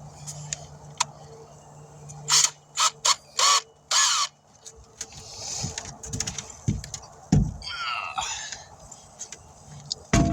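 A tire buffer wheel on a power tool run in five short, loud bursts, roughing up the inner liner of the tire around the puncture before the patch goes on. A few low knocks follow as the tire is handled, over a low steady hum in the first half.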